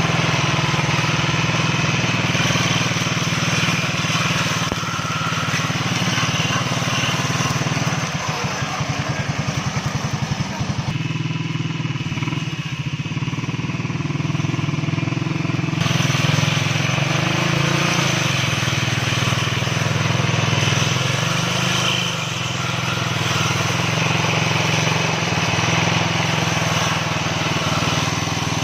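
Small engine of a homemade two-blade grass cutter running steadily. Its sound changes for a few seconds about a third of the way in, then settles back.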